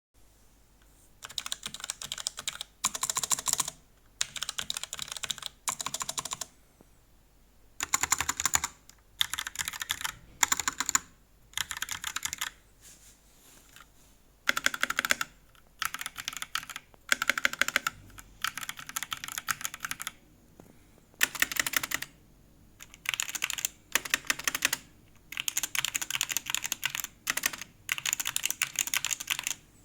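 Short bursts of typing on a series of keyboards in turn, mechanical ones and a membrane one, with brief pauses between the bursts. The clatter changes tone from one group of bursts to the next, some brighter and some duller.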